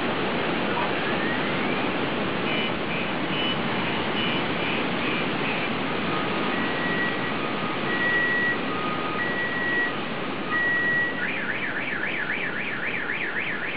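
Wind blowing hard through the trees, a steady roar. Over it a car alarm cycles through its tones: quick pulsed beeps, then long beeps alternating between two pitches, then a fast warbling tone near the end.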